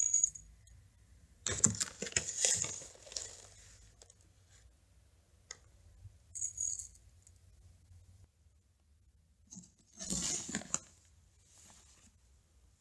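Dry seed-and-grain hamster food dropped by hand into a small ceramic bowl, clattering in several bursts a few seconds apart, with a sharp click at the very start.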